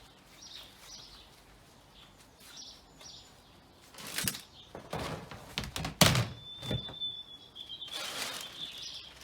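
A series of thunks and knocks, the loudest about six seconds in, as suet blocks and feeder parts are handled, with small birds chirping faintly and a thin high note held for a few seconds near the end.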